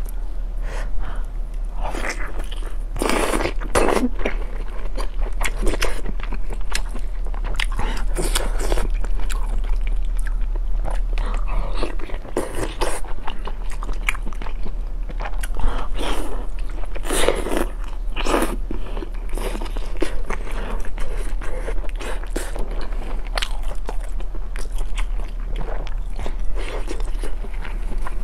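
A person biting and chewing braised sheep rolls, close to a lapel microphone, with irregular bites and chews throughout. A steady low hum sits underneath.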